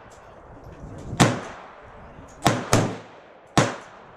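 Smith & Wesson M&P15 5.56 mm semi-automatic rifle firing four single shots. Two of the shots come in quick succession, and each sharp report trails off in a short echo. The loudest shot is about a second in.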